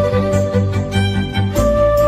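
Background music: a bowed violin-like melody over a steady, regular bass beat, with the bass pattern changing about one and a half seconds in.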